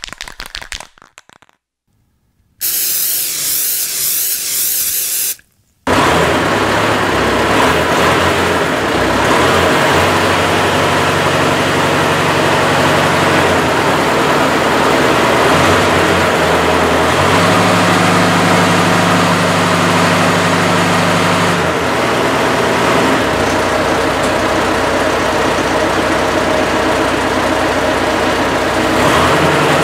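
Tractor engine running steadily, its low hum growing stronger for about four seconds midway.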